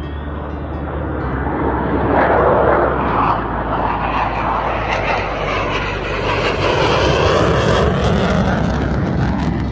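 Two Boeing F-15EX Eagle II fighter jets flying low past, the noise of their General Electric F110 turbofan engines swelling loudest about two seconds in and again around seven seconds.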